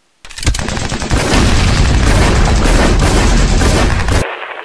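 Sound effects of automatic gunfire and explosions: a dense, loud barrage that starts about a quarter second in and cuts off abruptly about four seconds in, leaving a quieter, muffled noise.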